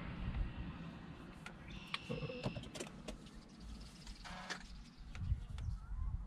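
Microfiber cloth pressed and rubbed over a screen protector on a car's touchscreen: faint rubbing with scattered light clicks and a brief high squeak about two seconds in, over a low rumble.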